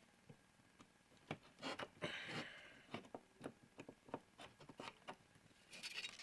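Faint scattered clicks and taps with two brief rustles, about two seconds in and near the end: hands handling the Work Sharp knife sharpener and its sanding belts.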